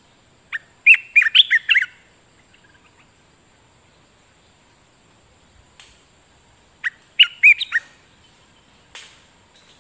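Olive-winged bulbul singing two short phrases of quick notes, one about a second in and one about seven seconds in. A faint, steady high insect buzz runs underneath.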